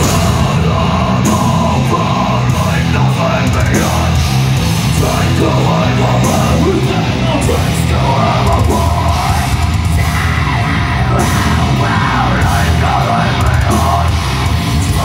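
Live heavy metal band playing loud, with distorted electric guitars, bass and drums, and yelled vocals over the top.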